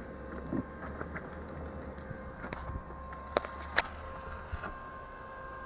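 Stick (arc) welding with a 2.5 mm electrode on a steel office-chair gas-lift column: a short weld about three seconds in, a second and a half of arc hiss and crackle with two sharp pops, over a faint steady hum.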